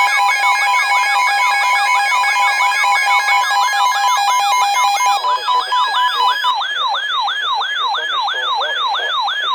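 Emergency alert tones: a steady two-tone alert signal layered with a fast-warbling electronic siren, about three sweeps a second. The steady tones drop out about five and six and a half seconds in, leaving the warble, which cuts off suddenly at the end.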